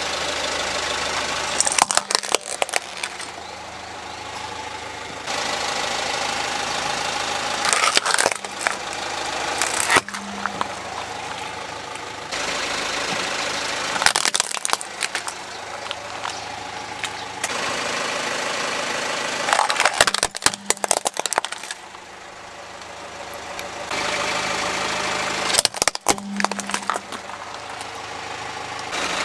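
Hollow plastic toys cracking and crunching as a car tyre rolls over and crushes them, about five bursts of cracks roughly six seconds apart, over the steady sound of the car's engine running.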